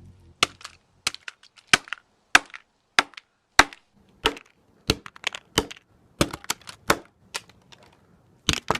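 A series of sharp knocks, roughly two a second and unevenly spaced, with a quick double knock near the end.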